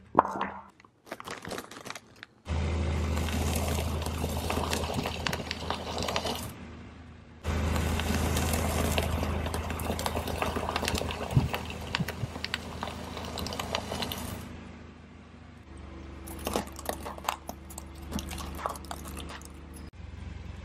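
A car tyre slowly rolling over and crushing things, with crunching and crackling over the steady low hum of the car, in several short clips that start and stop abruptly. In the middle, a pile of cheese puffs crunches under the tyre.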